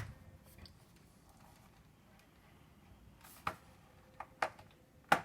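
A few sharp, faint clicks and taps of hands and a tool handling a plastic laptop case: one right at the start, then four more in the last two seconds.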